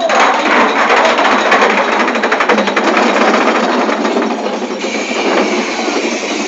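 Big Thunder Mountain Railroad mine-train coaster clattering on its track, a fast, rattling run of metallic clacks that eases about five seconds in, when a steady high whine joins.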